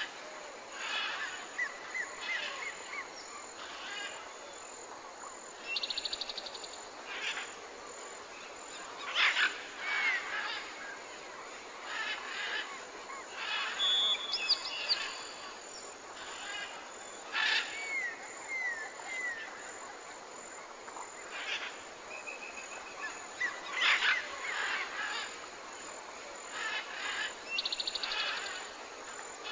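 Several small birds singing and calling over a steady hiss: many short high chirps, a few short whistled notes sliding down in pitch, and a fast buzzy trill about six seconds in and again near the end.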